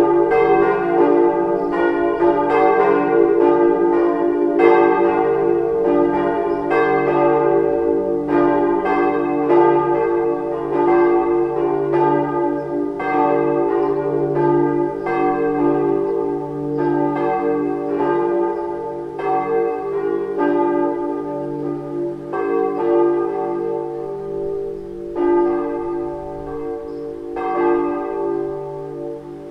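Four swinging church bells of hard cast iron, cast by Weule in 1949 and tuned d', f', g' and b', ringing together in a partial peal. Their strikes overlap in an uneven pattern over a steady hum, and the ringing grows quieter toward the end. The bells' strike notes sit noticeably out of tune with one another.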